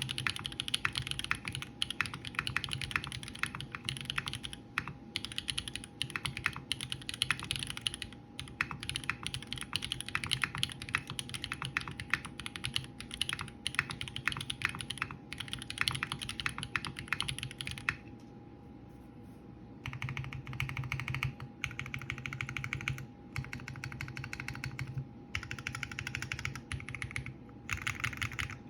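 Continuous fast typing on a TGR x Singa Unikorn mechanical keyboard with BSUN Holy Panda tactile switches on a brass plate and PBT keycaps. The keystrokes stop for about two seconds roughly two-thirds of the way through, then resume in short bursts.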